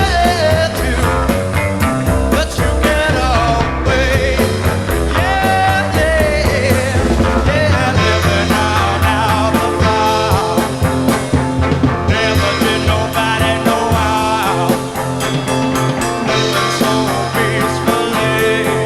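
Heavy psychedelic rock from a 1970 recording by a power trio of electric guitar, bass and drums, playing a slow, heavy groove with a steady drum beat.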